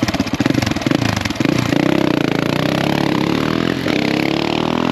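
Motorcycle engine pulsing at low revs, then accelerating with a steadily rising pitch, with a brief dip about four seconds in before it climbs again.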